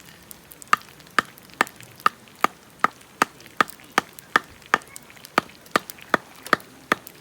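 Kitchen knife chopping food on a cutting board in a steady rhythm, about two and a half strokes a second, each stroke a sharp knock with a short ring.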